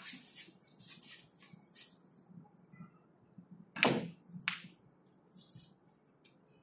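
Snooker cue tip striking the cue ball, the loudest knock, followed about half a second later by a sharp click of the cue ball hitting an object ball. Fainter small clicks come a few seconds before.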